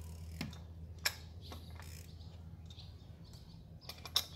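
A wrench tightening the oil filter housing cap on a VW Golf GTI Mk7 engine gives a sharp metallic click about a second in and two more near the end. Underneath is a low steady hum, with faint chirps in between.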